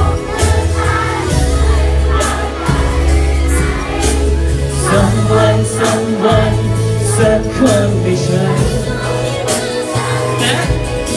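Live pop band music with a deep bass line that steps between notes and a steady drum beat, with a male singer singing into a handheld microphone over the PA.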